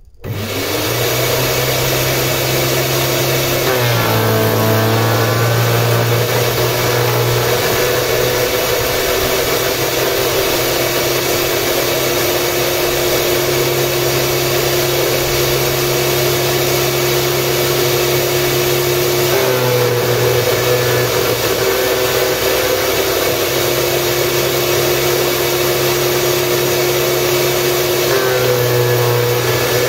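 Denzel ECS-2700 electric garden shredder switched on and running empty: a steady, loud motor hum that starts suddenly. Its pitch wavers briefly about four seconds in, again around twenty seconds, and near the end.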